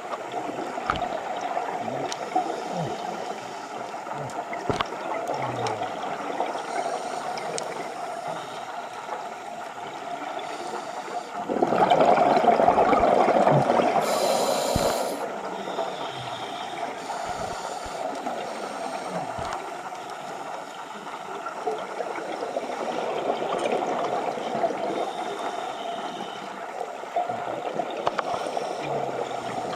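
Scuba diver breathing through a regulator underwater: a loud gurgle of exhaled bubbles about twelve seconds in, followed by a short hiss of inhaling, over a steady muffled underwater hiss.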